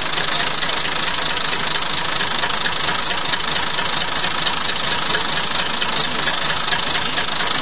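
Tractor diesel engine running steadily, fuelled by a blend of 80% jatropha biodiesel and 20% fossil diesel.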